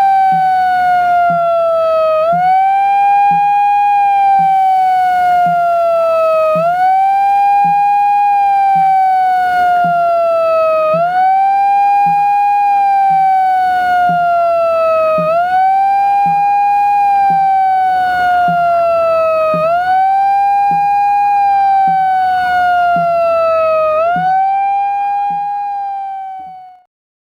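A siren wailing in a repeating cycle, each one rising quickly and then falling slowly over about four seconds, with faint regular low pulses beneath it. It fades away just before the end.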